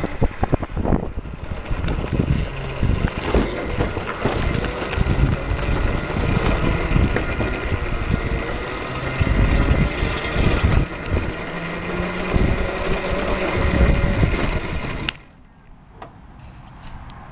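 Electric go-kart with dual 48-volt, 1,000-watt motors being driven over rough ground: an irregular rumble with many knocks and a faint motor whine. It stops near the end and the sound drops away suddenly.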